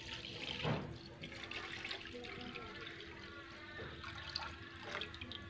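Full-cream milk being poured from a plastic jug into a wok, splashing steadily into the milk already in the pan.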